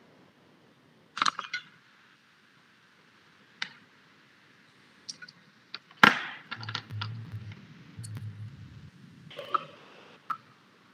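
Scattered sharp clicks and knocks, as from handling things at a desk, the loudest about six seconds in, with a brief low rumble between about seven and nine seconds.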